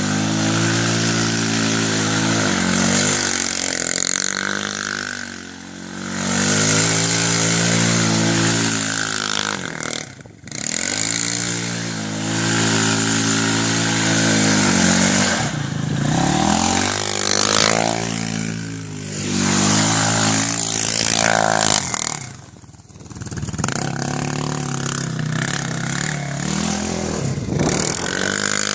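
Vehicle engine revving hard and easing off again and again while being drifted off-road, its pitch climbing and falling with brief lifts of the throttle about 5, 10, 16 and 22 seconds in, over a steady hiss.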